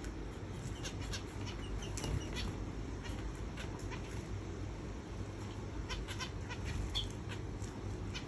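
Finches bathing in a shallow saucer of water, flicking their wings and splashing in short, irregular bursts over a steady low background rumble.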